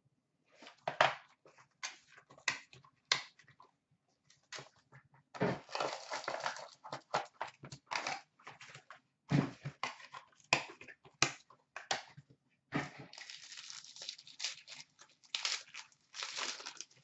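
Cardboard and paper being handled as a sealed hockey card box is opened by hand: the box scraping and sliding apart, its inner packaging pulled out and torn, in irregular rustles, crinkles and clicks, with longer stretches of rustling and tearing about five seconds in and again near the end.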